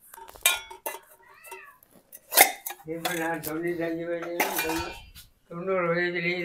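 Brass tumblers knocked together: a few sharp metallic clinks with short ringing in the first two and a half seconds. After that come two long, steady drawn-out voiced tones, one lasting about two seconds and a shorter one near the end.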